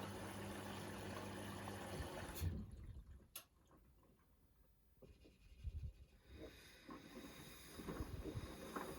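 Beko washing machine taking in water: a faint steady rush of water with a low hum, which cuts off with a click about two and a half seconds in. After a near-silent pause, a few soft low thumps follow.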